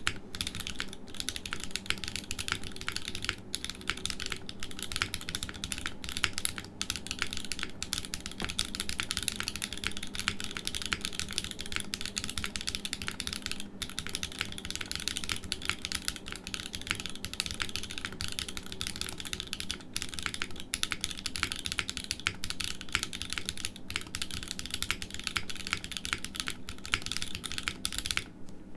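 Steady, fast typing on a Neo65cu aluminium top-mount keyboard, built foamless, with factory-lubed Kailh x YIGIIX Calligraphy switches and GMK Metropolis keycaps: a dense, continuous run of keystroke clicks that stops just before the end.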